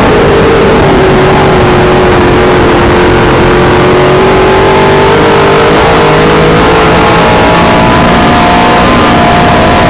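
Dirt modified race car's V8 engine running loud, heard from inside the cockpit. The revs drop in the first second and stay low, then climb again from about halfway through as the car accelerates, with a short dip near the end.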